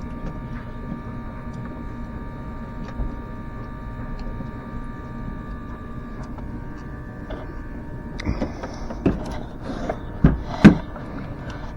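Smoke machine running with a steady hum while it pushes smoke into the engine's intake for a vacuum-leak test. A few knocks and clatters of handling come in the last few seconds, the loudest near the end.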